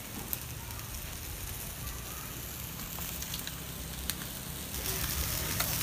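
Wood fire crackling and hissing steadily under skewered meat grilling over the embers, with a few sharp pops.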